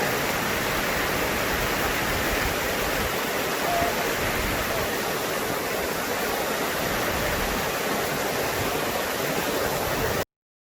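Rushing river water, a steady even hiss, that cuts off abruptly near the end.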